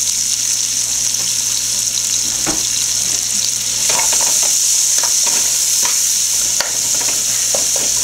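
Sliced onions and garlic sizzling in hot oil in a metal pot, a steady hiss. From about four seconds in, a utensil stirs and scrapes them against the pot, adding short scraping clicks.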